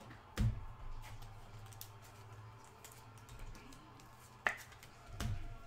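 Handling noises: scattered light clicks and taps, with a dull thump about half a second in and another near the end.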